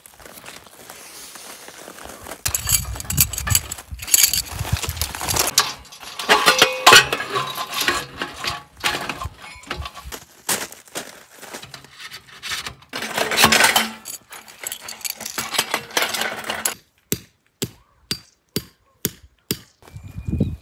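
Stainless steel wood-stove chimney pipe being handled and fitted, sections clinking and scraping against each other, with rustling of the tent's shiny fabric. Near the end comes a run of about eight sharp, evenly spaced knocks.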